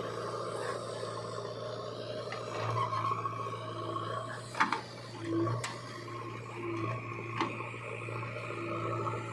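Diesel engine of heavy earth-moving machinery running steadily, with a few sharp metallic knocks a little after halfway through.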